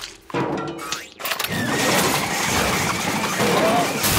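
Cartoon sound effect of a garbage disposal starting to grind and churn about a second and a half in, a loud, steady mechanical racket as it breaks down and throws food scraps back out.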